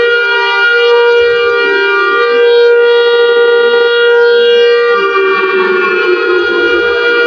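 Emergency Alert System-style alarm: a loud, sustained buzzy tone rich in overtones, holding one pitch and dipping slightly lower about five seconds in.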